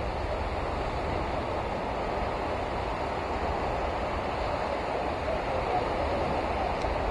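Steady beach ambience of wind and surf, with wind rumbling on the microphone.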